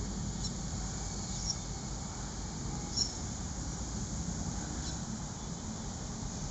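Outdoor background noise: a steady low rumble with a few short, high chirps, the sharpest about three seconds in.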